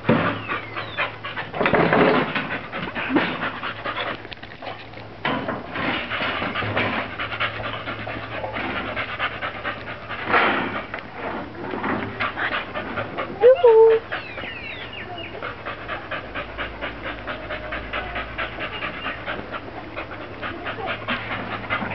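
Staffordshire bull terrier panting steadily and quickly, a few breaths a second. A brief, louder high-pitched sound comes about halfway through.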